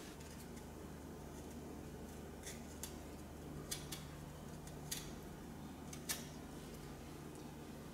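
Small kitchen knife cutting strips of peel from a lime: several crisp clicks of the blade through the rind, over a faint steady low hum.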